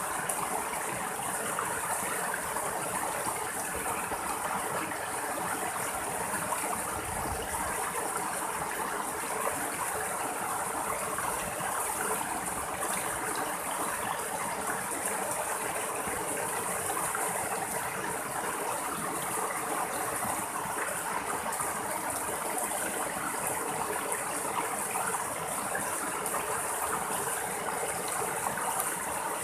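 Rocky stream flowing steadily, with water splashing down small cascades between boulders in an even rush.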